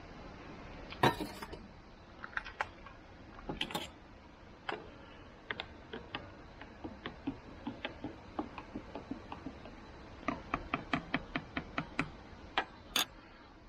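A plastic French press being handled: irregular light clicks and taps from its lid and plunger, with sharper knocks about a second in, near four seconds and near the end.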